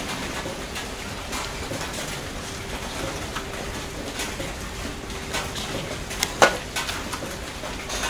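Newborn puppies suckling at their mother's teats: a run of small wet clicks and smacks, with one sharper click about six and a half seconds in.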